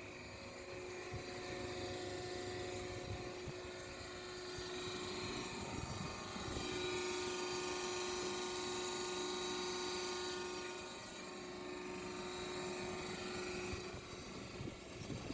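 Band saw machine running with a steady mechanical hum and whine. It grows louder for a few seconds around the middle, then settles back.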